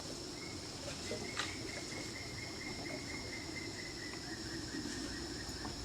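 Tropical rainforest ambience: a steady high insect drone, with a run of short repeated chirps at about four a second.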